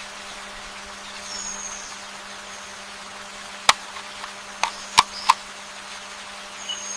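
Steady background hiss with a faint low hum, broken by four short sharp clicks in the second half.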